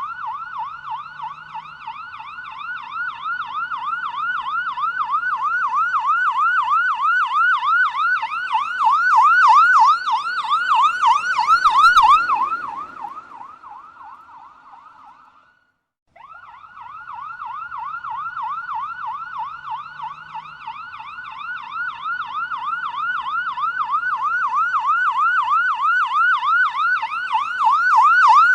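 Police siren in a fast yelp, sweeping up and down about four times a second and growing louder. There is a brief rush of noise at its loudest, about halfway through. It then fades away to silence and starts again, building once more.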